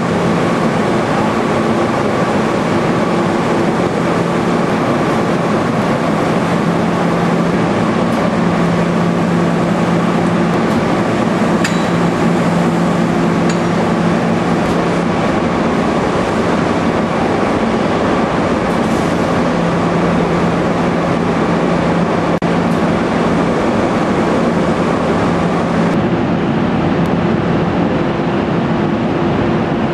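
Fruit-processing plant machinery running with a loud, steady drone and a constant hum. The hiss thins a little near the end.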